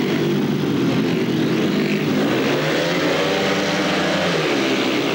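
A pack of 500 cc single-cylinder methanol-burning speedway motorcycles accelerating hard together off the start line, engines at full revs. Their pitch rises and then falls away about four seconds in.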